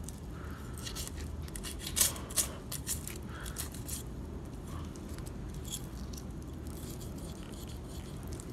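Buck knife working along a largemouth bass on a plastic cutting board: scattered small clicks and scrapes of the blade against the fish's scales, bones and the board, the sharpest pair of clicks about two seconds in, over a faint steady hum.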